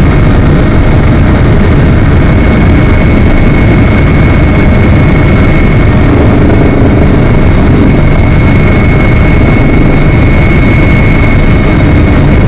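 Steady loud engine and airflow drone inside a small aircraft's cabin in flight, with a thin steady high tone running above the low drone.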